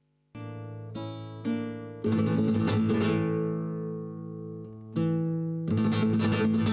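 Acoustic guitar music. It starts a moment in with a few single plucked notes, then full strummed chords that ring and fade, twice.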